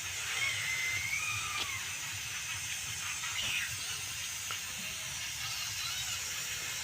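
A few faint, high, squeaky gliding calls from a baby monkey over a steady hiss, with a few faint clicks.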